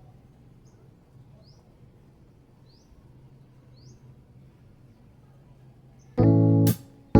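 Faint bird chirps, a few short rising notes a second or so apart, over a low steady hum. About six seconds in, loud electric piano music starts.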